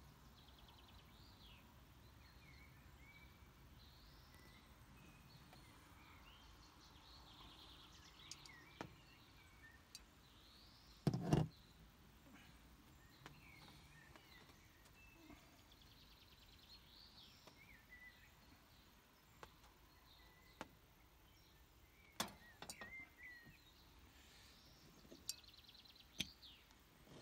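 Quiet open-air ambience with songbirds chirping and singing in the background throughout. One louder thud a little before halfway and a few sharp clicks later on, from things being handled and set down on a table.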